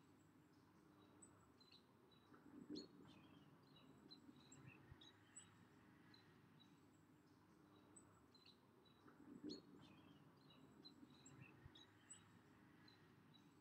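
Near silence: faint, scattered bird chirps over a low, even background hiss.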